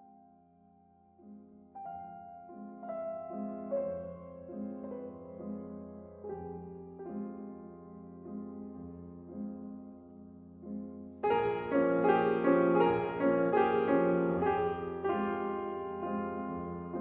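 Background music led by piano, playing soft repeated chords about twice a second. It swells into a louder, fuller passage about eleven seconds in.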